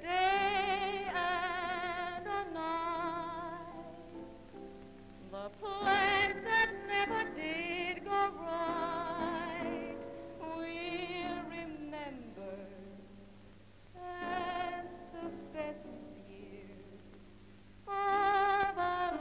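A woman singing a slow song in phrases, with strong vibrato, over instrumental accompaniment.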